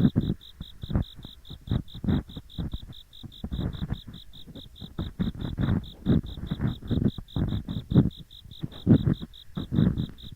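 Ear picks scraping and rubbing in both ears of an ear-shaped binaural microphone at once: irregular, dull, low scratching strokes. Under them, autumn insects chirp steadily at about seven pulses a second.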